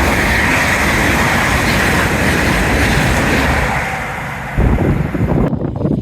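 Express train running through without stopping at speed, a loud steady rush of wheels on rail and air that eases off after about four seconds. Then the train's slipstream buffets the microphone in gusts of wind.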